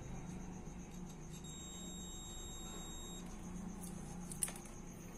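Digital multimeter's continuity buzzer giving one steady high beep for nearly two seconds as the probes touch the phone circuit board, signalling continuity between the probed points. A sharp click follows near the end.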